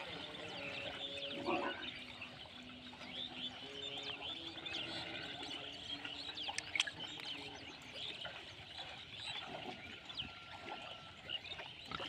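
Many small birds chirping throughout over a herd of pigs, with a few low pig grunts. A faint held tone shifts pitch in steps through the first half.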